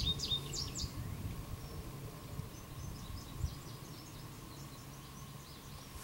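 Outdoor ambience: a cluster of songbird chirps in the first second and fainter chirps later, over a steady low hum with a faint steady higher tone. The recordist calls the hum an odd sound carried across the sky and insists it is not farm equipment.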